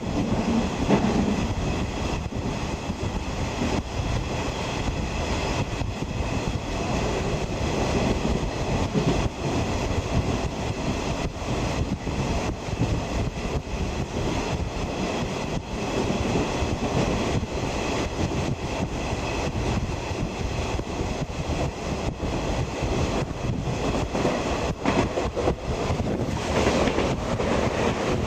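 Running noise heard from inside a 50-series passenger coach: a steady rumble of the wheels on the rails, with wheel clicks over the rail joints.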